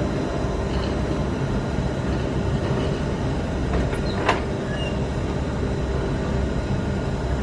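Approaching express train hauled by a WAP-7 electric locomotive: a steady rumble on the tracks, with one sharp click about four seconds in.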